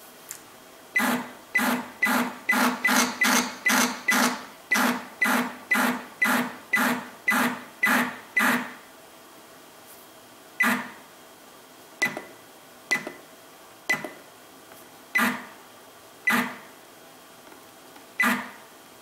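Stepper motor turning a Sherline rotary table in short jog moves. It gives a run of brief buzzing steps about twice a second, then slower single steps about a second apart.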